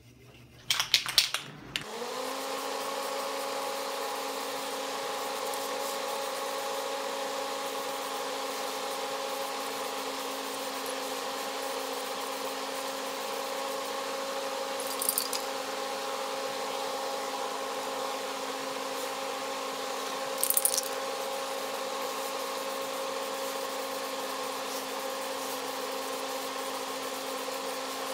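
A brief rattle of clicks, then a small electric motor spins up about two seconds in and runs with a steady hum and airy hiss. Two short high hisses come near the middle.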